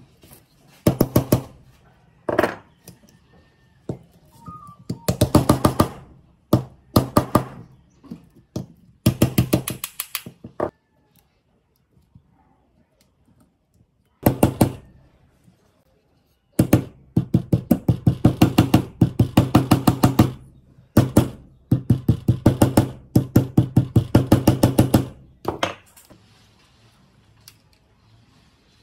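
Steel transformer core laminations being tapped into the bobbin with a hammer on a steel block: quick runs of light, evenly spaced metallic taps, many to the second, in several bursts with short pauses between them.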